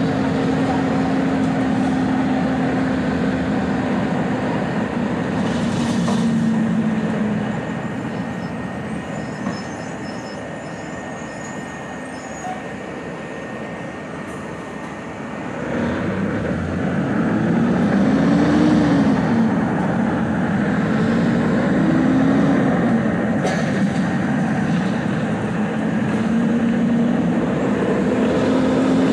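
A moving vehicle heard from on board: a steady running rumble with a droning hum. About halfway through, the noise grows louder and the hum starts to waver slowly up and down in pitch.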